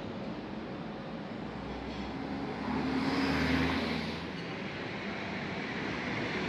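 Street traffic noise, with a motor vehicle passing close by: its engine grows louder about two seconds in and fades again about four seconds in.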